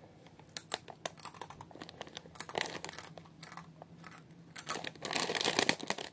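Chip bag crinkling as it is handled: scattered crackles at first, then dense crinkling in about the last second.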